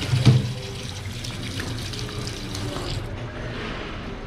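Water running from a tap into a sink while hands are washed under it. A short thump comes about a quarter second in.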